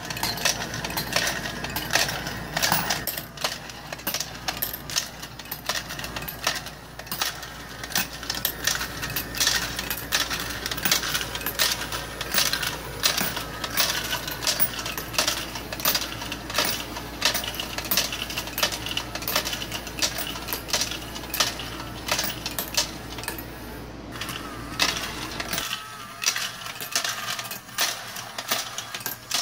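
Magnif coin sorter running: coins clatter and clink rapidly as they drop through the sorter into the wrapper tubes, over a steady low motor hum. The hum stops near the end while the clinking goes on.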